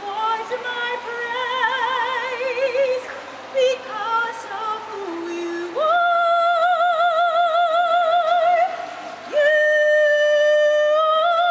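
A woman singing solo in an operatic style with wide vibrato. After several shorter phrases ending on a low note, she jumps up about halfway through to a long held high note, breaks off briefly, then holds another long high note.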